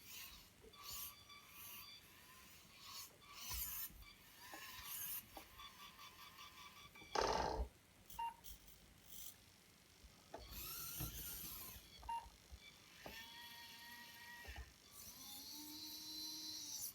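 RC model excavator's small electric drive motors whining in short spells, starting and stopping as the machine's functions are worked, with one louder burst of mechanical noise about seven seconds in.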